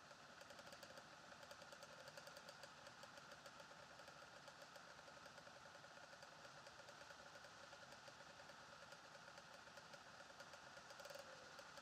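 Yamaha XT500 single-cylinder four-stroke engine idling, faint, with an even run of firing pulses at several a second.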